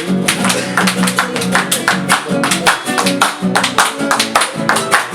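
Folk group playing an instrumental passage between verses: guitars strumming a quick, even rhythm over a steady bass, with no singing.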